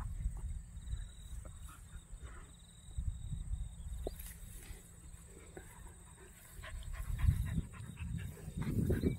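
Two dogs play-wrestling in grass, mouthing and scuffling at each other, the sounds growing louder near the end.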